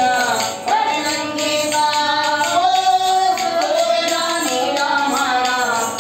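A man singing a Rajasthani folk song with gliding, held notes, accompanying himself on a ravanahatha, the bowed folk fiddle droning and following the melody under his voice.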